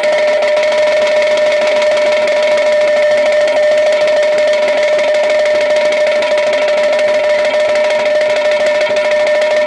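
Yakshagana chende drum played fast with sticks in a continuous roll, over one steady held note that runs the whole time.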